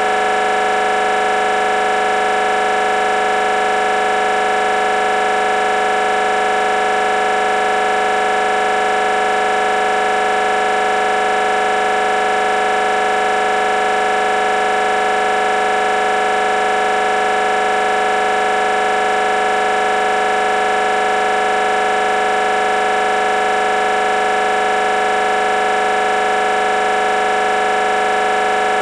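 Building fire alarm sounding without a break: one loud, steady tone that never changes.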